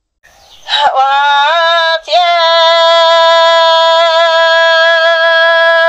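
A solo voice singing Hmong kwv txhiaj (sung poetry) unaccompanied, gliding up into its first note, breaking off briefly about two seconds in, then holding one long, slightly wavering note.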